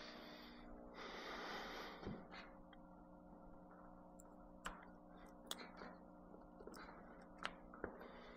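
Near silence with a faint steady electrical hum, a soft breath about a second in, and a few small clicks as plugs and cords are handled at a power strip.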